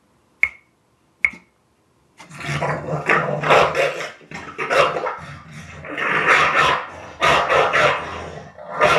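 Two sharp clicks, then from about two seconds in a dog growling and barking in long, rough stretches.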